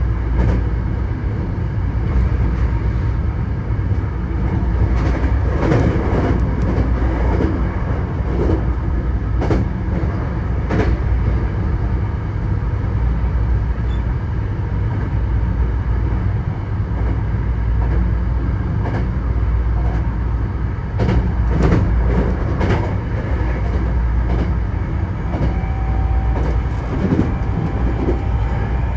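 Hankyu Kyoto Line electric train running, heard from inside the train: a steady low rumble with sharp clicks and clacks of the wheels now and then. A faint steady whine joins near the end.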